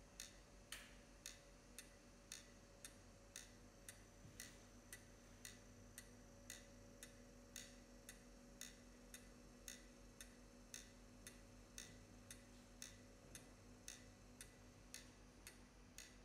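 Faint, even clock ticking, about two ticks a second, over a low steady hum.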